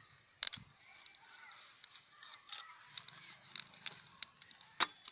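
Small wood fire of paper and kindling crackling and popping as it catches, with two sharper knocks of firewood, one about half a second in and one near the end.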